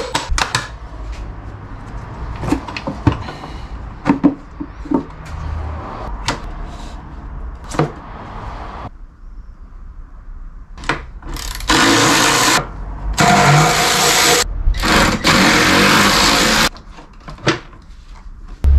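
Clicks and knocks of hand tools and plastic airbox parts being handled in a car's engine bay. About twelve seconds in, a cordless drill/driver runs in three bursts over some five seconds, undoing the airbox fasteners.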